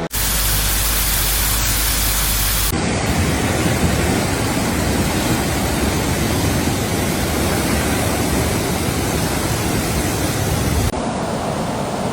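Loud, steady rush of water, in three abruptly cut segments, changing character once about three seconds in and again near the end.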